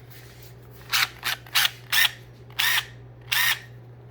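Makita LT01 12V cordless angle impact driver run in six short trigger blips, its motor briefly spinning up and down each time, over a steady low hum.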